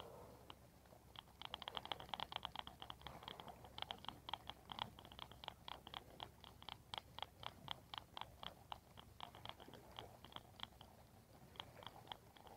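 Spinning reel being cranked to retrieve a lure: a fast, even run of faint ticks, about five a second, starting about a second in and thinning out near the end.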